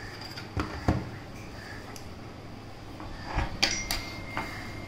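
Handling noise from a cardboard product box being turned over in the hands: a few light knocks and rubs, a pair about a second in and a cluster at about three and a half to four and a half seconds in.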